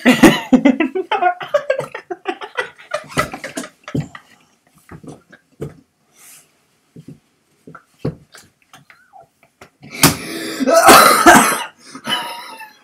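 Two people laughing uncontrollably. Choppy, breathless bursts of laughter at first, a quieter stretch of short gasps and snorts in the middle, and a loud burst of laughter about ten seconds in.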